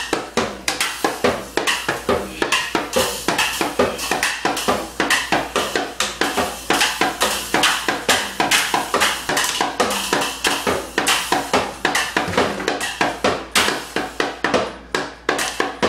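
Children's toy drum set being banged fast and unevenly with drumsticks by two players, a jumble of drum hits and small cymbal clashes with no steady beat.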